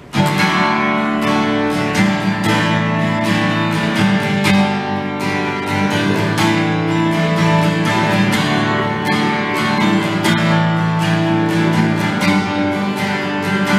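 Acoustic guitar strummed in full chords with a steady, dense rhythm, starting suddenly.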